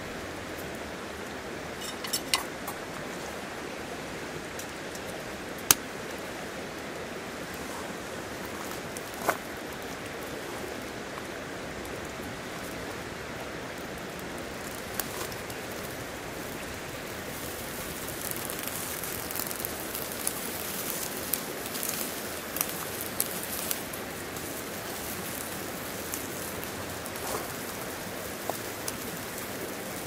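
Steady rushing noise of a nearby stream, with a wood fire crackling in a small folding box stove: a few sharp pops several seconds apart, then more frequent crackles in the second half.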